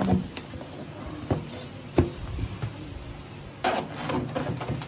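Kitchen knives chopping through a firm block and knocking onto bamboo and plastic cutting boards: a few separate sharp knocks, the loudest about two seconds in.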